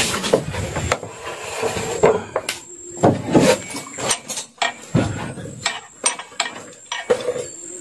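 Metal hand tools and outboard-motor parts clinking and knocking at irregular moments as the engine is taken apart.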